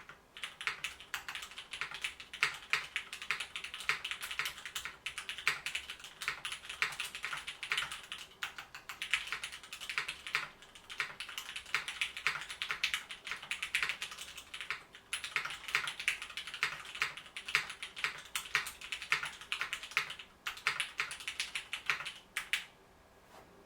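Steady typing on a custom mechanical keyboard with lubed Cherry MX Black linear switches (milky tops) and GMK keycaps: a dense run of keystroke clacks with a few brief pauses, stopping about a second before the end.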